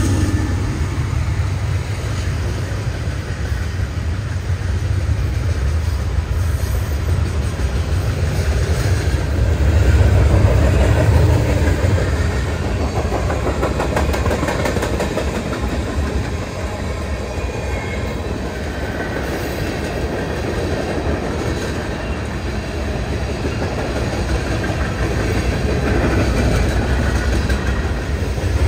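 Freight cars of a BNSF mixed freight train rolling past close by: a steady heavy rumble of steel wheels on the rails, with some clickety-clack of wheels over the rail joints.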